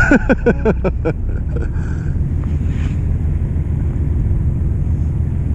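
A fishing boat's engine running steadily, a low rumble, with a quick run of about seven short falling chirps in the first second.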